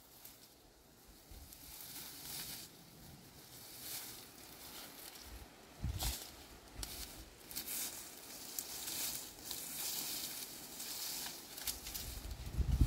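Irregular rustling and crackling of leaves and brush, heavier in the second half, with a single low thump about six seconds in.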